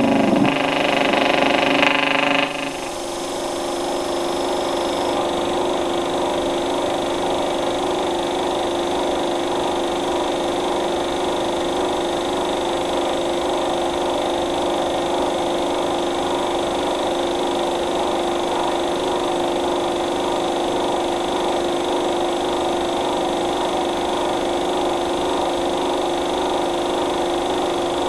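A steady, unchanging mechanical drone with constant hum tones and hiss. For the first two seconds or so a louder pitched tone sounds over it, then cuts off abruptly.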